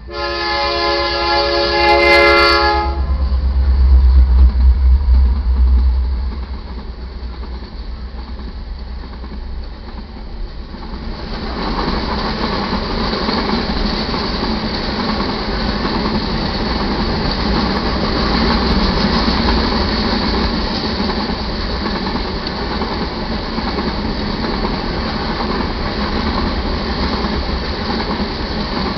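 Diesel freight train horn sounding one chord about three seconds long, then the deep rumble of the EMD SD70MAC locomotives going by. From about eleven seconds in, steel-wheeled iron ore hopper cars roll past steadily with clickety-clack wheel noise.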